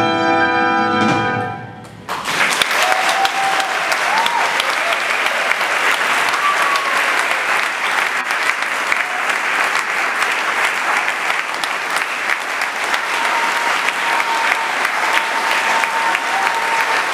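A brass ensemble of trumpets, French horn, trombone and tuba holds a final chord that dies away about two seconds in. An audience then breaks into applause that carries on steadily.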